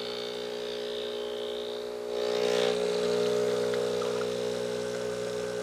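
Espresso machine's pump running steadily during a shot extraction, a droning hum that gets louder about two seconds in.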